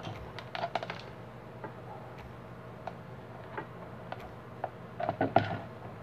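Scattered light clicks and rattles of small parts and wires being handled, a quick cluster about a second in and another near the end, over a faint steady hum.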